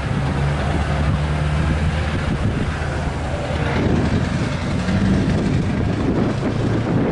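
Steady low hum of idling engines over traffic noise, with no crossing bell ringing.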